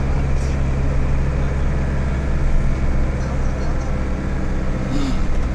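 Steady low drone of a motor vehicle's engine and road noise, holding an even level throughout.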